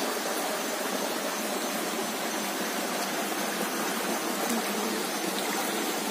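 Steady rush of a shallow rocky forest stream, water running over and between stones.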